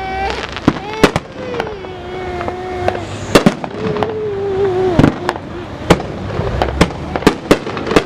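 Fireworks going off: an irregular string of sharp bangs and pops, about two or three a second.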